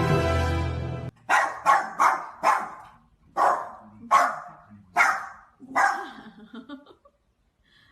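Music that cuts off about a second in, followed by a dog barking about eight times in short, sharp barks.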